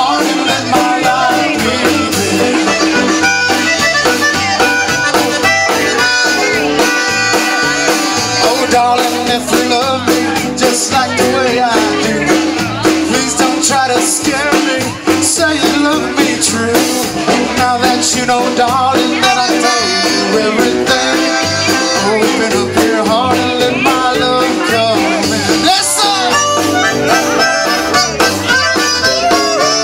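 Live band playing an upbeat number, with a button accordion leading over electric and acoustic guitars, bass and drums.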